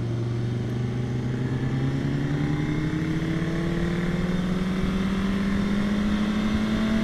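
Sport motorcycle engine pulling under steady throttle, its pitch climbing slowly and evenly without a gear change as the bike gains speed, heard from on the bike with wind rush.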